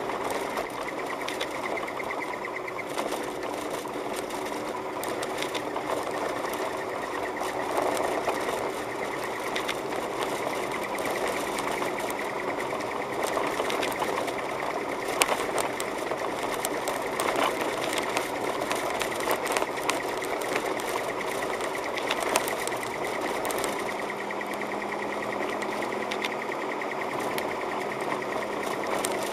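Car driving on a snow-covered road, heard from inside the cabin: the engine running steadily under tyre noise on packed snow, with a dense, fast clicking rattle throughout.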